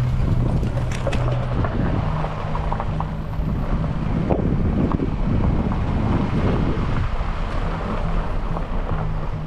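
A vehicle driving on a rough track: the engine runs under a heavy rumble with scattered knocks and crackles, and wind buffets the microphone.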